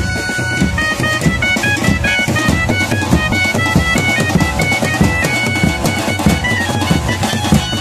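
A banjo party band playing: a bright melody of short, quick notes from the lead instrument over fast, dense drumming on several drums struck with mallets and hands.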